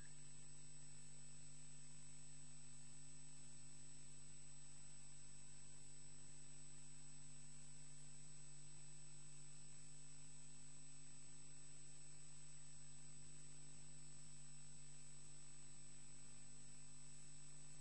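Steady electrical hum with a constant high-pitched whine and faint hiss from a nest webcam's audio feed; nothing else stands out.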